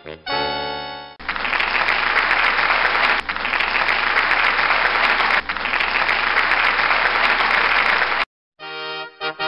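A held musical chord, then about seven seconds of crowd applause that cuts off suddenly. Bouncy music starts up again near the end.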